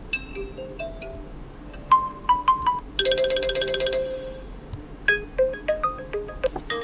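Oppo Find X5 Pro built-in alarm tone playing from the phone: a melody of short bell-like notes, with a fast shimmering trill of repeated chords about three seconds in.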